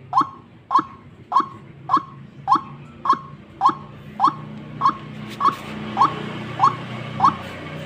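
White-breasted waterhen (ruak-ruak) calling, a short sharp note repeated in an even series about twice a second, over a faint low hum.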